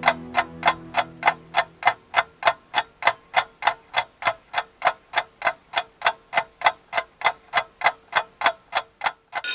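Clock ticking quickly and evenly, about three to four ticks a second, a sound effect counting down exam time. A low sustained piano chord dies away under the ticks in the first two seconds.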